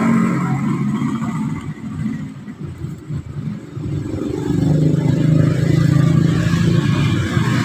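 Passing street traffic: a motor vehicle engine hum grows louder about halfway through and holds steady.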